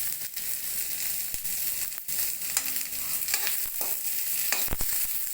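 Onions, green chillies and pakora chillies sizzling in hot oil in a kadhai while being stirred, with a steady hiss and scattered crackles. Several sharp knocks near the end, like a spoon striking the pan.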